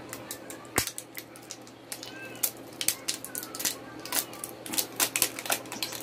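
Fingers handling a small glass bottle of fragrance oil, working at its plastic cap and clear wrapping: a string of quick, irregular clicks and crackles that grows busier in the second half.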